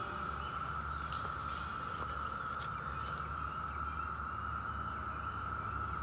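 Chorus of periodical (17-year) cicadas: a steady, unbroken drone.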